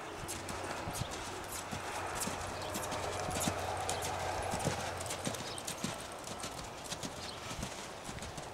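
Clydesdale mare's hoofbeats on arena sand as she canters under a rider: a quick, uneven run of soft thuds and clicks.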